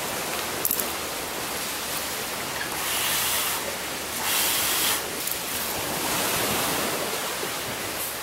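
Steady wash of ocean surf, with two louder rushes of hiss about three and four and a half seconds in.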